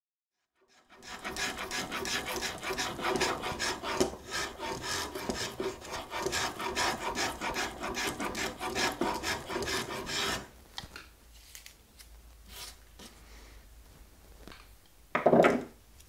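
Spokeshave cutting wood from a guitar neck in rapid repeated strokes for about nine seconds, then softer, scattered scraping. A short, louder knock comes near the end.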